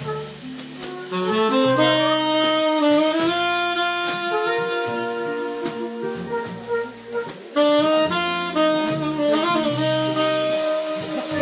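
Jazz music with a saxophone carrying the melody over a walking bass line and drums.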